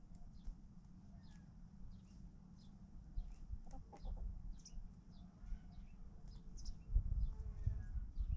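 Chickens clucking quietly, with short, high, falling chirps repeating about twice a second. A low rumble and a few thumps get louder near the end.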